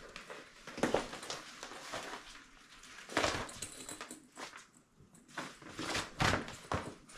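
Canvas tent door panel and its clear plastic window rustling and crinkling in irregular bursts as it is unwrapped, unfolded and shaken out, with louder bursts about a second in, around three seconds in and near six seconds.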